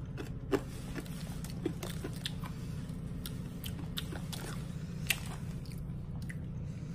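Hard blue sugar rock candy being chewed: irregular sharp crunches and clicks, with a louder crack about half a second in and another about five seconds in.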